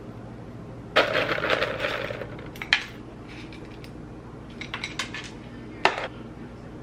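Dishes or utensils clattering: a ringing clatter about a second in, then scattered clinks and a sharp click near the end, over a steady low hum.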